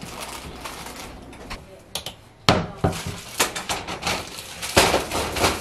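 Plastic bag of baby Dutch yellow potatoes rustling, then the potatoes dropping into a plastic bowl: a few sharp knocks from about halfway, then a short clattering pour near the end.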